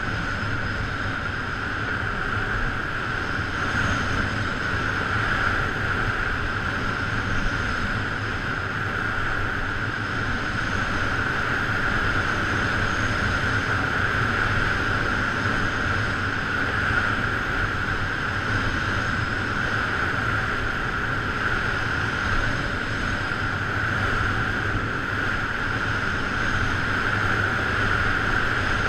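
Steady rushing noise of downhill skiing picked up by a body-worn action camera: wind over the camera and skis sliding on packed snow, with no change in pace.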